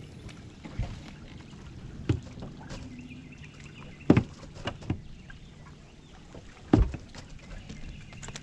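A handful of sharp knocks and thumps on the boat, the two loudest about four and seven seconds in, over a steady low hum.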